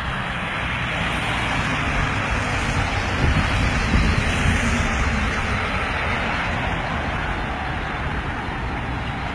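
A convoy of cars driving past on a street: steady road and engine noise that swells about three to five seconds in as the cars go by.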